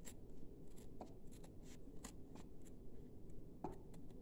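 Small scissors snipping through felt, trimming the excess off around a doll shoe: a run of faint, short clicks, about two or three a second.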